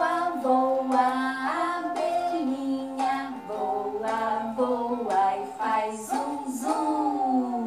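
A woman singing a children's song melody, with held notes that step and glide from one to the next.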